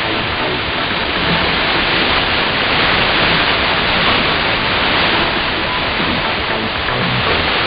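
Shortwave radio static: a steady hiss of noise from a communications receiver tuned to a weak AM pirate signal on 6295 kHz, with no clear programme audio above the noise.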